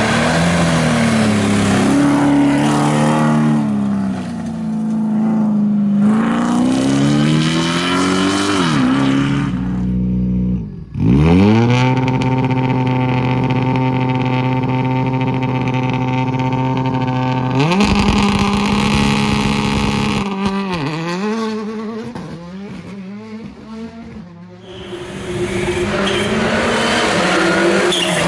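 Rally car engines at full throttle, revving up and dropping at each gear change in a series of short takes. In the middle, one engine holds high revs, rising slowly, for about six seconds.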